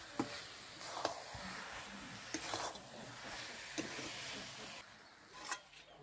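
A spatula stirring thick carrot halwa in a metal karahi, over a soft sizzling hiss, with a few sharp clicks where it knocks and scrapes the pan. The hiss falls away shortly before the end.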